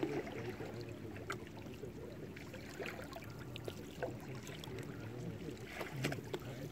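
Small waves lapping and splashing against shoreline rocks, with irregular little splashes and clicks over a steady low wash of moving water.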